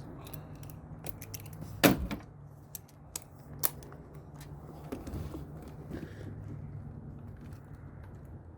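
Metal hand tools clinking and knocking on the engine as the valve cover bolts are taken out, with scattered sharp clicks and a loud clank about two seconds in. A steady low hum runs underneath.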